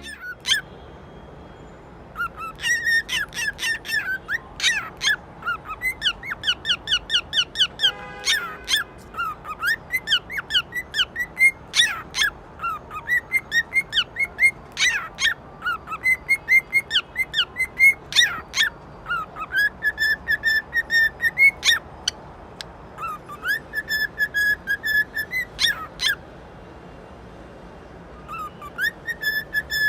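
An animal's high-pitched squeaks and chirps in quick runs, broken by a few longer, steady whistle-like notes.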